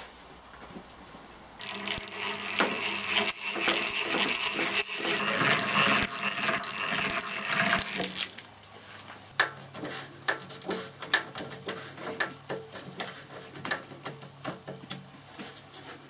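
Power drill boring a hole into a wooden board, a loud dense whir for about six seconds. After a short pause the drill runs again at a lower, steady hum with a rapid run of sharp clicks as a screw is driven into the board.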